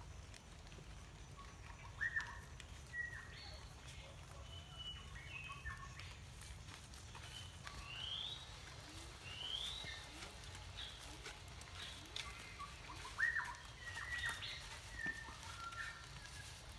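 Birds chirping and whistling in short calls and rising sweeps, loudest about two seconds in and again near the end, with faint taps and scrapes of a trowel on concrete blocks and mortar.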